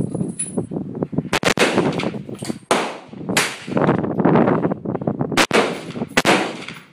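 Rifle gunfire: several loud shots within a few seconds, each trailing off in a lingering echo.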